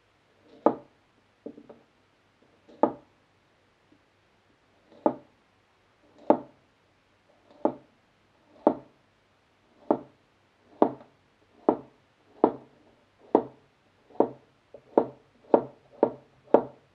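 Large chef's knife slicing a thick white root vegetable into rounds, each cut a short crunch through the vegetable ending in a knock of the blade on the cutting board. About seventeen cuts, slow and spaced at first, coming faster in the last few seconds.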